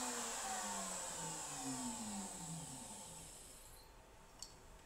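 Router motor of a CNC router table spinning down after a keyhole-slot cut: a whine that falls in pitch and fades out over about four seconds, then a single light click near the end.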